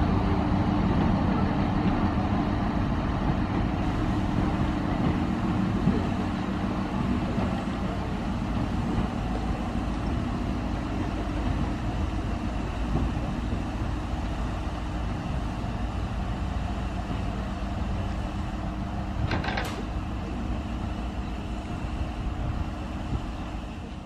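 Industrial diesel shunting locomotive's engine running steadily, a low, even drone with a brief sharp squeak or click about three-quarters of the way through.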